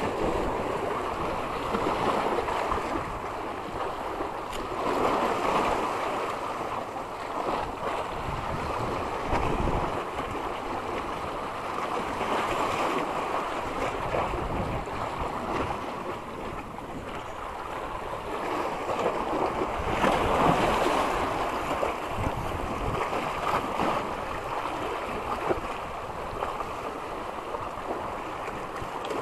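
Wind on the microphone over the wash of sea water at the shore, a steady rushing noise that swells and eases every few seconds, with a few gusty low rumbles.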